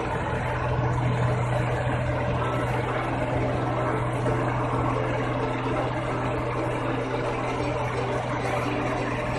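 New Holland Clayson 1545 combine harvester running steadily as it cuts rice: a constant low engine drone with the machinery's whir over it.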